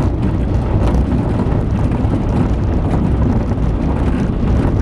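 Light single-engine aircraft's engine and propeller at low power, with the rumble of the ground roll over snow, heard inside the cockpit; a steady, low-heavy noise.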